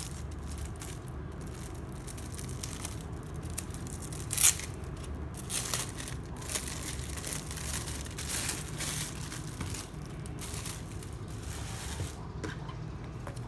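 Notebook packaging being handled and unwrapped, crinkling and tearing in short irregular strokes, with one sharp rip about four and a half seconds in.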